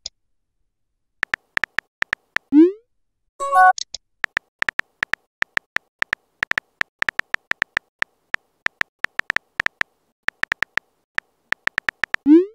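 Phone keyboard typing sound effect: a long run of rapid, evenly pitched key clicks, several a second, as a text message is typed. About two and a half seconds in, a short rising pop and a chime mark an incoming message, and another rising pop starts near the end.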